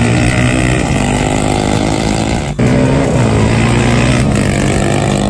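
Sport ATV engines running hard at high revs as the quads accelerate side by side. There is a short break about two and a half seconds in, after which a side-by-side UTV's engine runs alongside a quad's.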